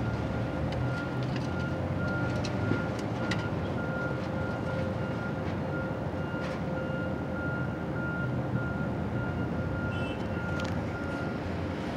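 Excavator engine running steadily while it tears into a building, with scattered sharp cracks and clatters of breaking debris. A backup alarm beeps steadily throughout.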